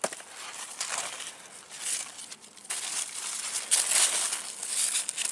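Cucumber leaves and vines rustling and crinkling as a hand pushes through them and turns them over close to the microphone, in uneven bouts with small crackles.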